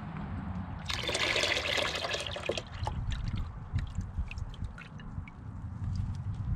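Old engine coolant poured out of a plastic coolant overflow reservoir into a drain pan full of coolant: a splashing pour starting about a second in and lasting about a second and a half, then dribbles and drips.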